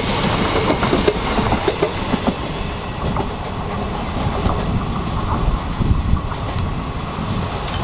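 Passenger train running past, its wheels clattering over the rails with a steady rumble and many quick clicks.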